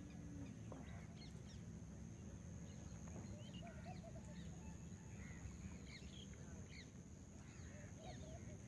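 Faint chorus of many birds calling: short, scattered chirps and calls overlapping throughout, over a low rumble.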